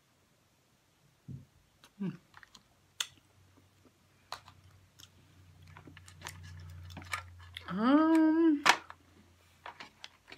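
King crab legs' shells cracking and snapping in the hands in a scatter of sharp clicks. Near the end comes a loud closed-mouth 'mmm' from the eater, rising in pitch and then held for about a second.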